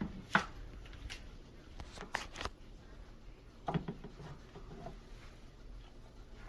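A Cane Corso puppy cleaning her mouth after drinking: a few short, scattered clicks and scuffs, most of them in the first four seconds.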